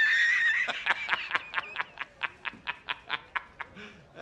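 A man's loud, high-pitched laugh from a film soundtrack: a held squeal for about two-thirds of a second, then a rapid cackle of about seven short bursts a second that slowly weakens.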